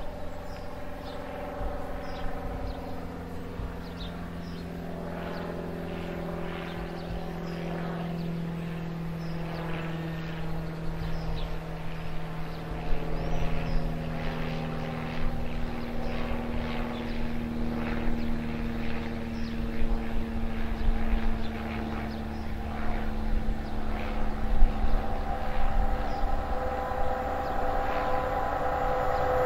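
A train's engine running with a steady drone. Its pitch steps up about halfway through, and it grows gradually louder toward the end.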